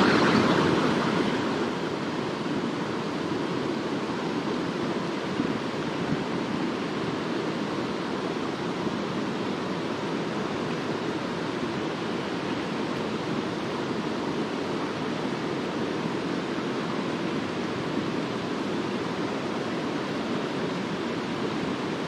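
Mountain stream rushing over rocks: a steady, even wash of flowing water, a little louder in the first second or so before settling.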